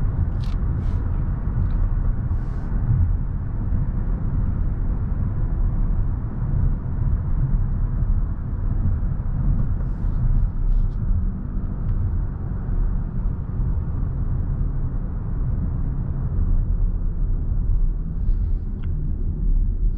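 Steady low road and tyre rumble from a moving 2023 BMW i7 xDrive60 electric sedan, with no engine note, and a few faint ticks now and then.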